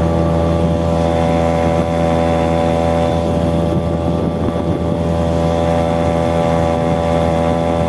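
Outboard motor pushing an inflatable boat, running loud and steady at one constant speed.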